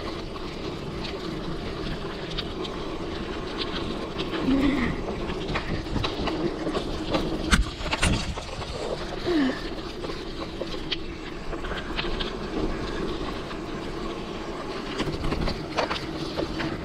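Mountain bike riding over rough trail ground: a steady rumble of tyres with continuous rattling and clicking from the bike, and two sharper knocks about seven and a half and eight seconds in.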